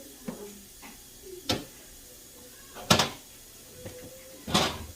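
Things being knocked and set down while a refrigerator is cleared out: three loud knocks about a second and a half apart, the last a little longer, with lighter clicks between.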